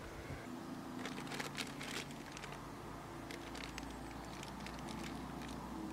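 Thin plastic bag crinkling in a cluster of quick crackles about a second in, then a few scattered ones, as the welding helmet inside it is lifted out and handled, over a steady low hum.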